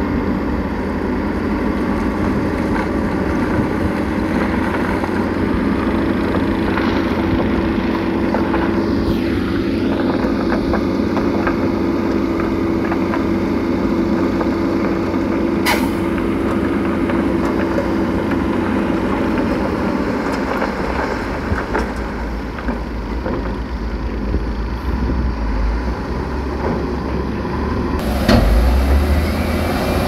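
Heavy diesel construction machinery running steadily. A steady drone eases off about two-thirds through, and there is one sharp click near the middle.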